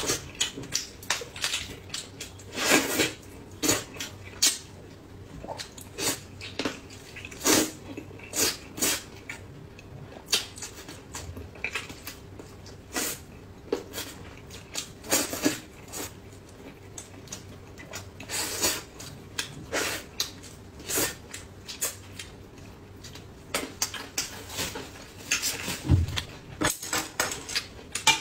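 Close-miked mukbang eating: irregular wet smacks, sucks and chewing as meat is bitten and torn off chicken pieces. Near the end, chopsticks knock against a metal bowl.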